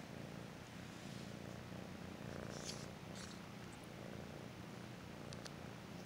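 Orange tabby kitten purring steadily, close up, with a few faint rustles about halfway through and again near the end.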